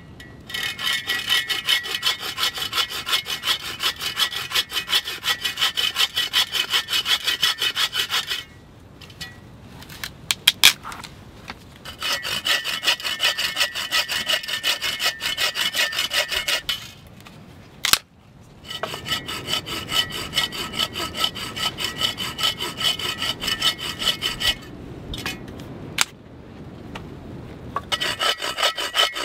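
Bow saw cutting through a branch propped across a log, in quick back-and-forth strokes. The strokes come in four bouts, with short pauses between them that hold a few sharp knocks.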